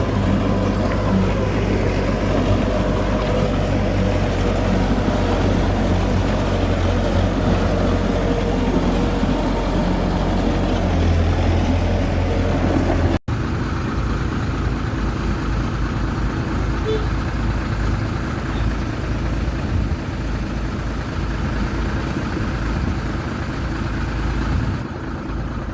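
Heavy diesel engines of earthmoving machinery running steadily. A brief dropout about halfway through cuts to a different engine sound.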